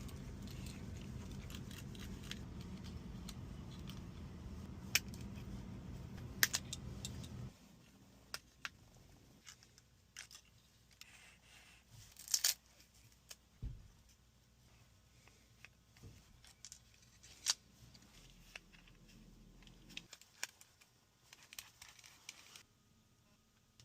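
Scattered sharp clicks, taps and small scraping sounds from handling a phone and small repair tools during a screen replacement. A steady low hum runs under the first seven seconds or so and then cuts off suddenly.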